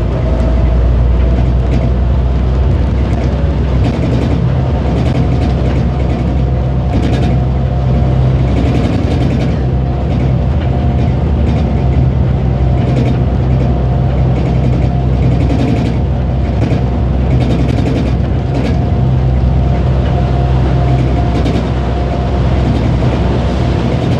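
Airport people-mover train heard from inside the cabin while running along its guideway: a steady motor hum with a faint held whine, and scattered short clicks.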